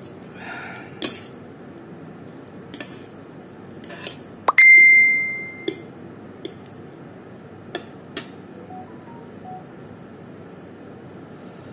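Metal fork and spoon clicking against a ceramic plate of fried noodles while they are twirled. About halfway through, one loud clink sets the plate ringing, and the ring fades over a second or so.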